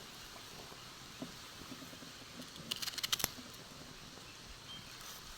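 A short, quick cluster of sharp clicks and rattles about three seconds in, over a steady outdoor background hiss.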